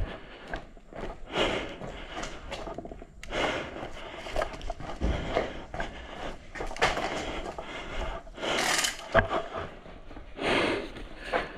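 Irregular rustling, rubbing and scraping close to the microphone, the sound of an airsoft player moving with gear and clothing brushing, with a few sharp knocks scattered through.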